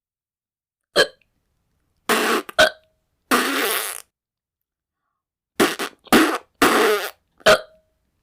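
Mouth 'fart' noises: a series of blown raspberries, about five, each lasting a fraction of a second, made as a hiccup cure. Three short, sharp hiccup-like sounds fall between them, about a second in, in the middle, and near the end.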